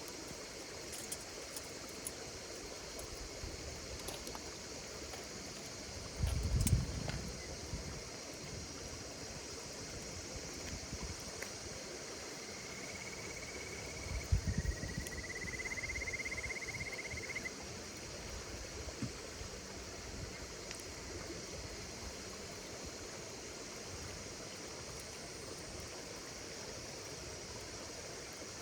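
Campfire crackling with scattered sharp pops over a steady, high-pitched chorus of insects calling. Low thumps come about six and fourteen seconds in, and a buzzy, slightly rising trill sounds for a few seconds in the middle.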